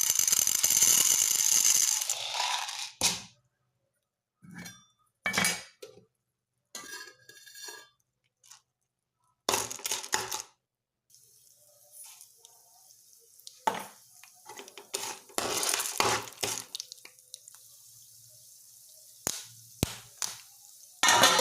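Cut-together kitchen sounds of making sweet popcorn: clinks and knocks of a metal pan and utensils, a loud noisy pour at the start, and, about halfway through, a long steady hiss in the pan with scattered sharp pops.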